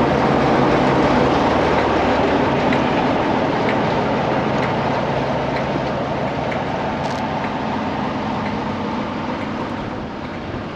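Class 47 diesel locomotive's Sulzer twelve-cylinder engine running with a steady low drone, slowly growing fainter.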